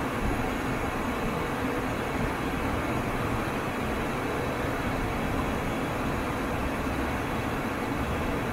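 Steady rushing hum with a low rumble inside a parked ATR 72-600 turboprop's cockpit. The noise is even throughout, with no separate knocks or changes.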